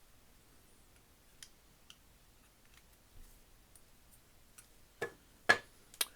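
Light, scattered metal clicks and taps from hand tools working on a ratchet head's small parts. Near the end come three sharper knocks, the loudest about five and a half seconds in.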